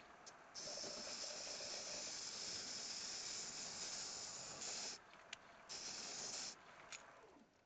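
Two bursts of hissing from a pressurised jet, a long one of about four seconds and then a shorter one of under a second, with a few faint clicks between and after.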